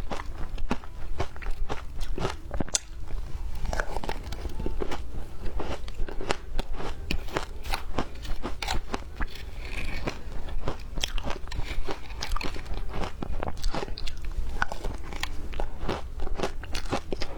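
A person biting and chewing frozen ice, with quick, irregular, crisp crunches several times a second.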